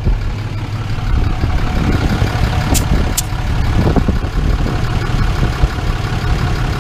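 RAM pickup truck's engine idling steadily, with two short hisses about three seconds in as a pencil-type tire gauge is pressed onto the front tire's valve stem.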